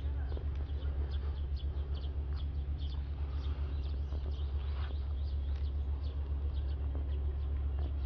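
Footsteps of someone walking along a garden path, over a steady low rumble. Many short, high chirps or clicks are scattered throughout.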